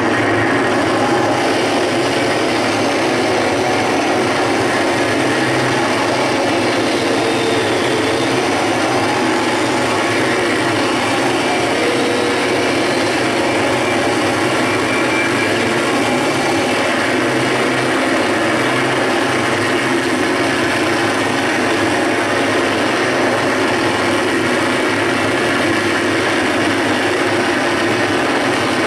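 Harsh noise from a large chain of effects pedals: a dense, steady wall of distorted noise that barely changes in loudness.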